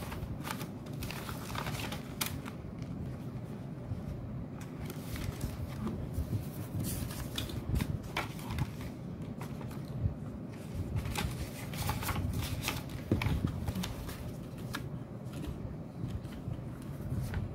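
Ringgit banknotes and paper envelopes rustling and crinkling as hands sort and leaf through a stack of notes, with many irregular sharp crinkles throughout. A steady low hum sits underneath.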